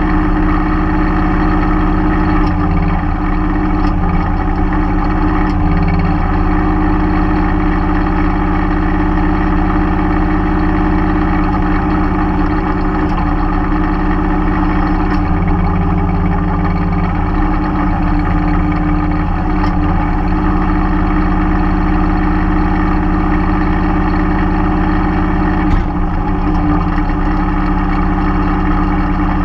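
Mahindra 3016 compact tractor's diesel engine running steadily while working the backhoe. The engine note shifts several times as the load changes, and there is a single sharp knock near the end.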